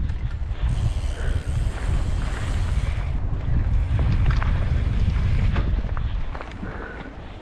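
Wind buffeting the camera microphone while riding a Ragley Mmmbop hardtail mountain bike down a trail, with rapid knocks and rattles from the bike over rough ground. The rumble eases somewhat near the end.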